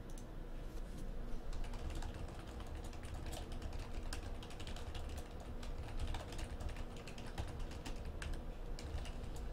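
Typing on a computer keyboard: irregular runs of quick key clicks.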